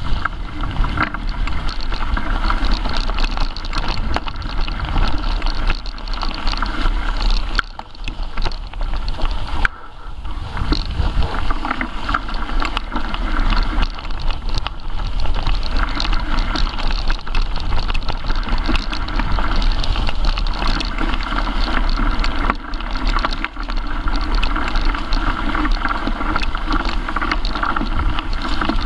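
Mountain bike being ridden over a rough, leaf-covered forest trail: steady rattling and rumbling of the tyres and bike with many small knocks from bumps, easing off briefly twice near the middle.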